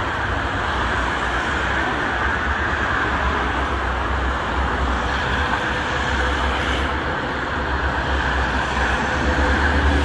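Steady road traffic passing below: cars, vans and trucks driving by on a multi-lane road, a continuous tyre-and-engine noise over a low rumble that grows a little louder near the end as vehicles come close.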